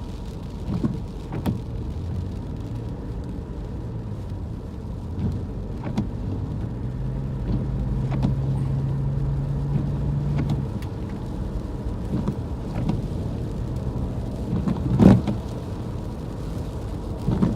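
Car driving through a thunderstorm, heard inside the cabin: low road and engine rumble with wind gusts buffeting the car, and scattered light clicks. A steady hum runs for a few seconds in the middle, and there is one louder thump about fifteen seconds in.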